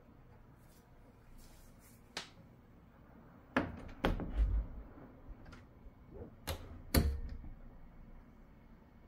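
A scattered series of sharp clicks and dull thuds, about seven in all, the loudest clustered about four seconds in and again about seven seconds in: taps and steps on a laminate floor.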